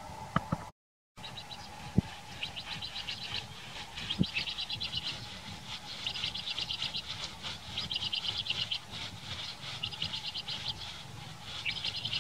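Bird chirping in rapid high trills, repeated in bursts of about a second each, with a sharp knock about two seconds in and another about four seconds in.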